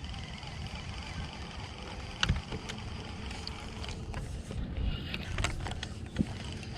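Steady low rumble on a boat, with one sharp knock about two seconds in and several lighter clicks and taps in the second half.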